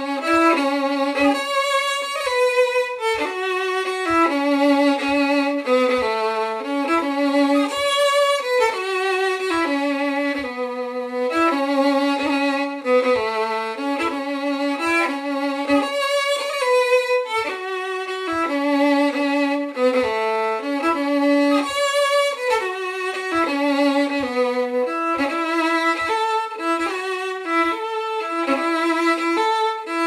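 Solo fiddle playing an old Scottish tune up to speed, a continuous run of bowed notes. A soft low tap keeps the beat beneath it, a little more than once a second.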